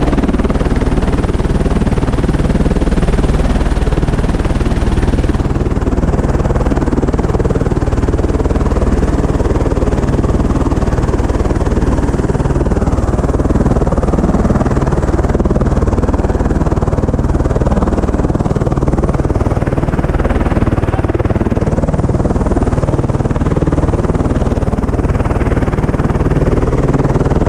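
Helicopter running close by with its main rotor turning: a loud, steady rush of turbine and rotor noise, with the rotor downwash buffeting the microphone.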